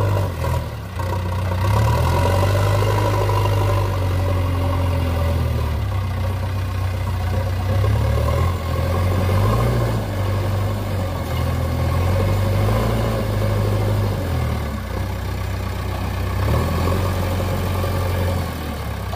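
JCB backhoe loader's diesel engine running under working load, its note rising and falling several times as the front bucket scoops soil and lifts it.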